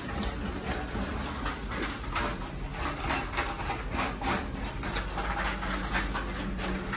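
Supermarket ambience: a steady low hum with a run of quick scuffing taps, a few a second, like footsteps of someone walking the aisle.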